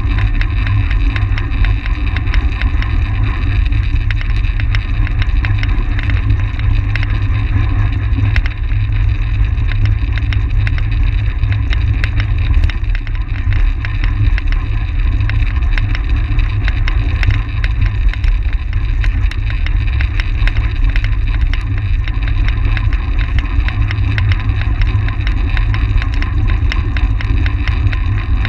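Steady, heavy wind noise buffeting the microphone of a camera mounted on a track bike ridden at race speed, with a dense crackle of small ticks.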